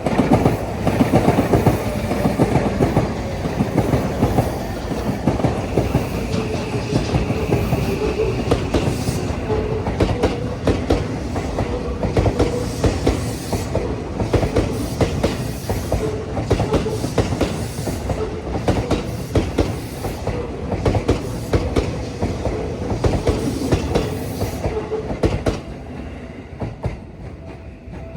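Seibu Railway electric train passing at close range, its wheels clattering rapidly over the rail joints with a steady hum under the clatter; the sound eases off near the end.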